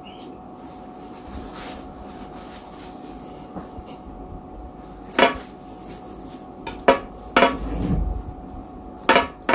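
White plastic spoon clicking and scraping against a plate as food is scooped: a handful of sharp clicks, starting about five seconds in and the last two close together near the end.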